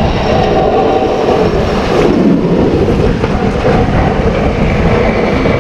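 Engine of a snow-clearing machine running steadily nearby, a loud rumble with a droning hum.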